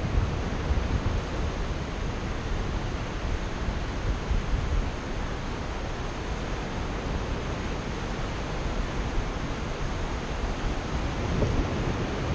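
Steady wind rushing over the camera microphone of a paraglider in flight: a dense hiss with an uneven low rumble.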